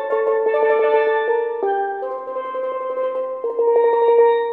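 A single steelpan, a tenor (lead) pan, playing a slow melody. Each note is held by a rapid roll of repeated stick strokes, and the notes change every second or two.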